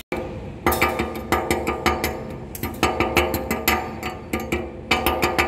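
Background music with a fast clicking beat over sustained tones, starting just under a second in after a sudden cut.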